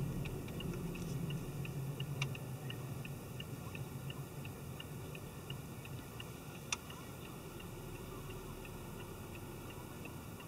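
A car's turn-signal indicator ticking evenly, about two to three ticks a second in a slight tick-tock, over a low engine and road hum that eases after the first few seconds. Two sharper clicks come about two seconds in and again near seven seconds.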